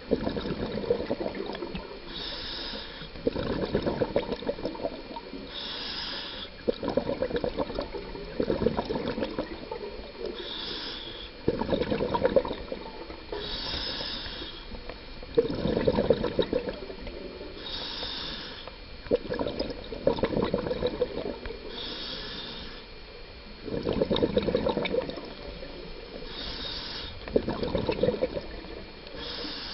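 Scuba diver breathing underwater through a regulator: a short hiss of each inhalation followed by a longer burst of exhaled bubbles, repeating about every four seconds.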